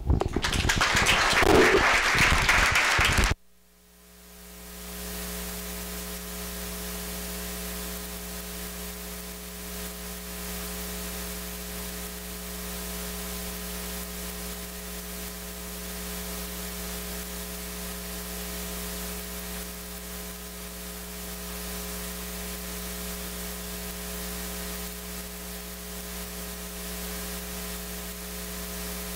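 Audience applauding for about three seconds, cut off abruptly. Then a steady electrical mains hum and hiss from the recording chain, with no other sound over it.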